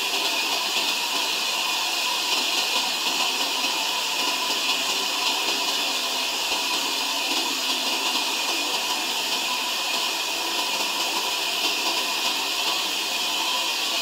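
Sawmill saw cutting through a log: a steady, even hissing noise with no breaks or changes.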